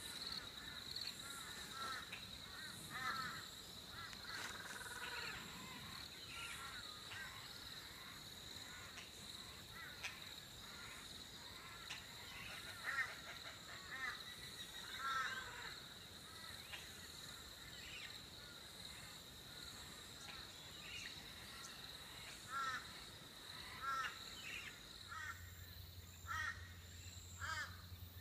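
Morning birdsong: various birds calling in short chirps and phrases, over a steady high insect trill. A low steady hum comes in near the end.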